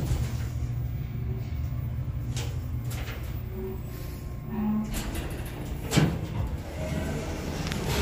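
ThyssenKrupp elevator car running with a steady low hum, then its doors slide open with a knock about six seconds in.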